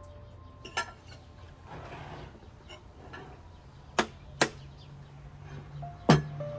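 Sharp clicks and knocks from a glass bottle being handled and uncapped: two close together about four seconds in, and the loudest near the end as the cap is twisted off.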